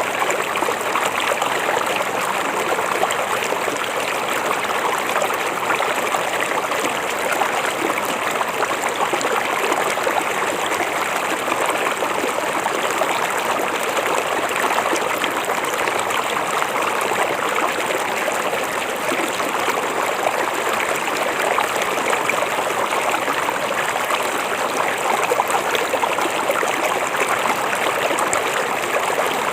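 River water flowing steadily, an even, unbroken rush of running water.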